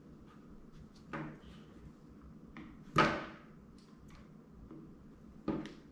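Small flathead screwdriver prying at the plastic toe hook of a Burton Step On binding, working it loose from the base plate: three sharp plastic clicks, the loudest about halfway through, with faint small ticks and scrapes between.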